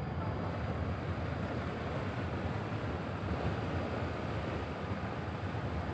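Large passenger ship's engines and propellers churning the water as it manoeuvres away from the dock, a steady low rumble mixed with the wash of water.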